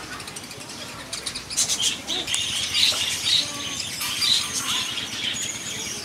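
Small birds chirping, many short high notes overlapping, getting busier about a second and a half in.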